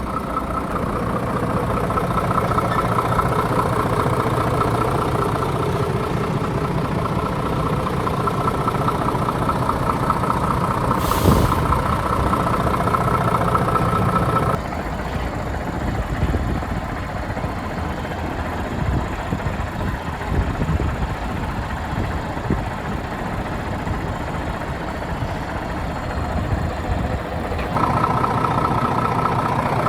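Iveco Trakker 380 truck's diesel engine idling steadily, with a short hiss about eleven seconds in.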